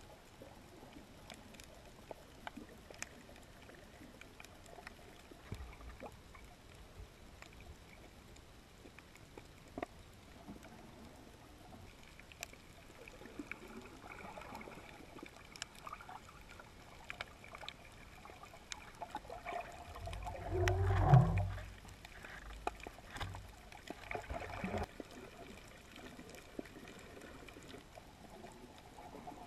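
Underwater ambience picked up by a submerged camera: scattered sharp clicks and crackles over a low hiss, with a louder low rumble of water movement about two-thirds of the way through.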